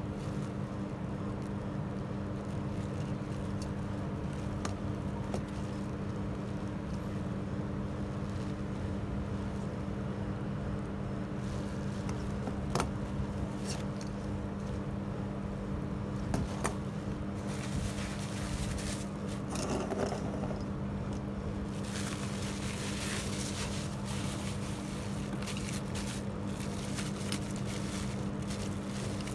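Small metal motor-fader parts being handled over a steady low hum, with a few sharp clicks. In the last several seconds, bubble wrap is crinkled and rustled as a wrapped fader is picked up.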